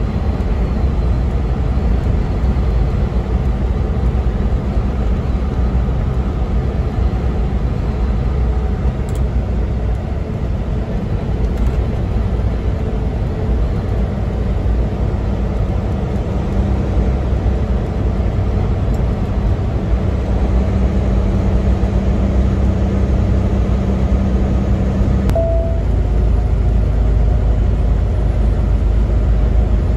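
Semi-truck engine and road noise heard from inside the cab while driving at highway speed: a steady low rumble, changing briefly about 25 seconds in as one steady tone drops out and the low rumble grows stronger.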